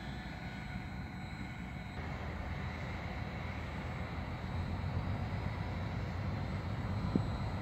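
Class 740 diesel shunting locomotive's engine running as it approaches slowly, a low rumble growing gradually louder, with a brief knock near the end.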